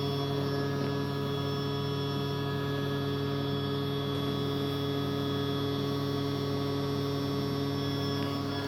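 Numatic Hetty tub vacuum cleaner running, its motor giving a steady, even hum at a constant pitch.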